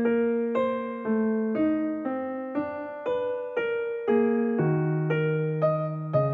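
Background piano music: a slow, gentle run of single notes about two a second, each struck and fading away.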